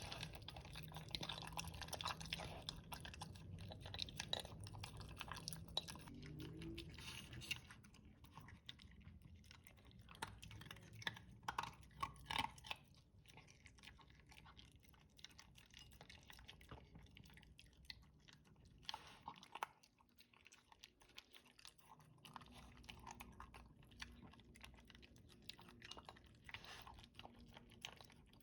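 Dog chewing slowly at food mixed with a worming medicine, with irregular crunches and clicks of the jaws. The chewing comes in spells with pauses between, the slow eating being his reluctance over the mixed-in medicine.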